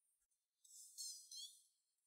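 Near silence, with two faint high-pitched chirps about a second in.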